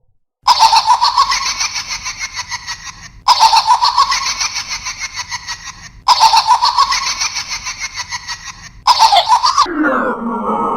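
Electronic sound chip in a 1994 Spearhead Industries hanging laughing pumpkin prop playing its recorded cackling laugh three times in a row, each burst about three seconds of rapid ha-ha pulses. A fourth laugh starts near the end and then drops sharply in pitch.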